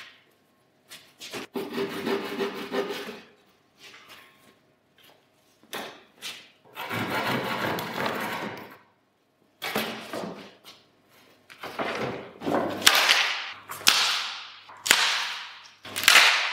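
Plywood pieces scraping as they are lifted off the cut sheet, then hand sanding of plywood edges to smooth out tear-out: rasping strokes with short pauses between them, coming faster near the end.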